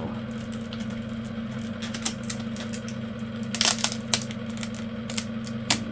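Light clicks and taps of small objects being handled on a hard work surface, a cluster of sharper clicks a little past halfway and another near the end, over a steady low hum.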